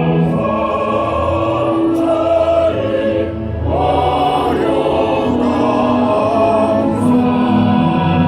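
Choral music: a choir singing long held notes over accompaniment, with a short break about three seconds in.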